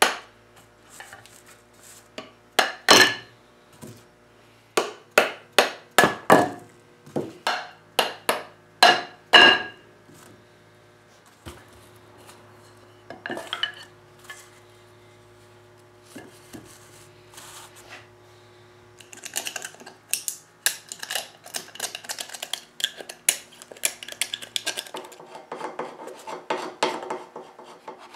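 A mallet knocking apart the glued mortise-and-tenon joints of a teak chair frame: runs of sharp knocks over the first ten seconds, then a few more. Later comes a longer stretch of scraping and rubbing on the wood.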